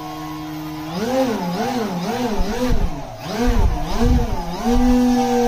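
Electric motor and propeller of a foam RC delta-wing plane, throttled up and down in quick pulses about twice a second, the whine rising and falling with each pulse, then held at a steady higher speed near the end and slowly easing off.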